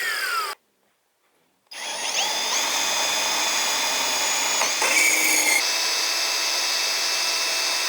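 Electric drill boring holes in steel. At the start its whine falls as it winds down. After a second of silence the motor spins up with a rising whine and runs steadily under load, with a brief change in tone about five seconds in.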